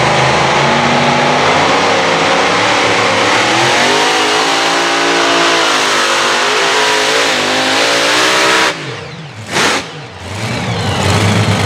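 A competition pulling tractor's engine running at full throttle under load while it drags the weight-transfer sled, its pitch rising midway. The engine sound drops away abruptly about nine seconds in, and loud engine running builds again near the end.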